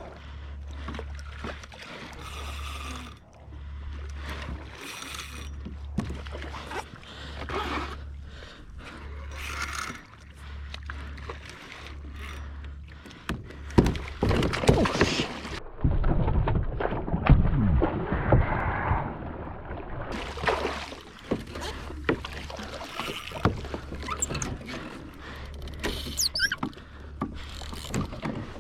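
Water splashing and sloshing around a fishing kayak, with knocks on the hull, loudest in a stretch of heavy splashing about halfway through. Under it runs a low hum that pulses on and off about once a second.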